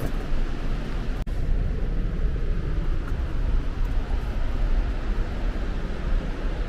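North Falls, a large waterfall, rushing steadily with a dense, deep wash of falling water. The sound drops out for an instant just over a second in.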